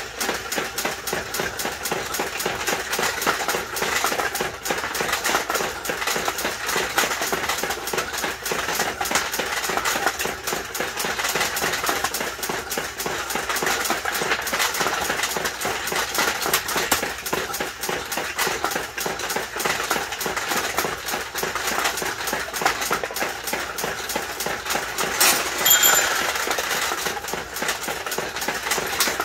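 Vintage mechanical pachinko machine in play: steel balls fired in quick succession by the hand-cranked launcher, a dense, continuous clatter of balls striking the pins and rattling through the machine. About 25 seconds in, a bell rings briefly, the bell struck by balls draining out to the ramp.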